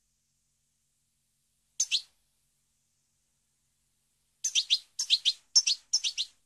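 European goldfinch calling: a short two-note chirp about two seconds in, then from about four and a half seconds a quick string of high twittering notes in small clusters.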